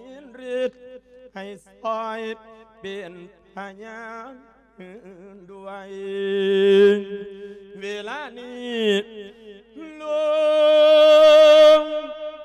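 A Buddhist monk chanting an Isan lae, the melodic sung sermon, here one for sending off the spirit of the dead. The voice winds through short phrases with a shaking vibrato, then swells into a long held note about ten seconds in, the loudest part.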